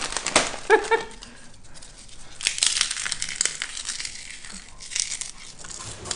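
A bag of pork rinds crinkling and crunching as it is squeezed and the rinds are crushed inside, in two main bursts, the second starting a little over two seconds in.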